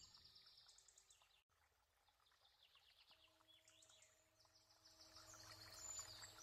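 Faint songbird chirps and trills, repeating throughout, with a low steady hum joining about three seconds in.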